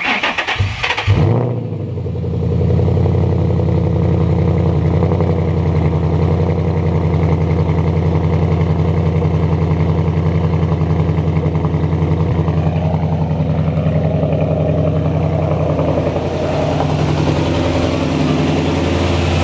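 A car engine starting up in the first second or so and then idling steadily, heard close behind its dual exhaust tailpipes; the idle shifts slightly about sixteen seconds in.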